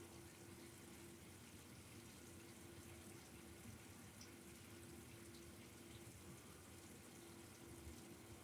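Near silence: faint steady room hiss with a low, steady hum.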